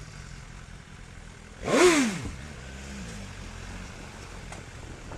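Motorcycle engine ticking over, blipped once about two seconds in: a short, loud rev that rises quickly and falls back to idle.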